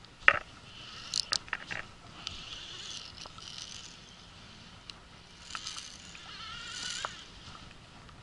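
Baitcasting reel's drag buzzing in two stretches as a hooked fish pulls line off against a loose drag setting, after a few sharp clicks in the first two seconds.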